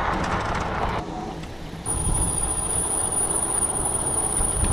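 Wind rush and tyre rumble from riding an electric bike over a gravel and dirt track. From about two seconds in, a thin, steady, high-pitched whine runs on top.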